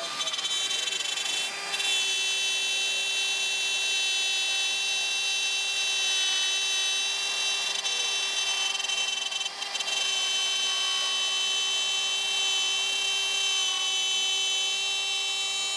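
Shaper Origin handheld CNC router's spindle running at speed as its 1/4-inch bit cuts an inside shape in wood. It is a steady high whine, dipping briefly about a second and a half in and again near the ten-second mark.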